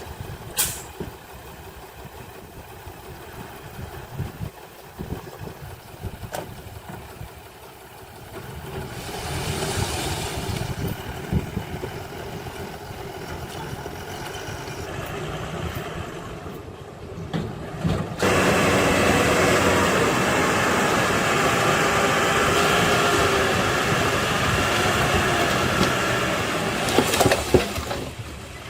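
Heavy diesel earthmoving machinery running, quietly at first and building after about eight seconds, then revving up sharply about eighteen seconds in and holding a loud, steady engine note.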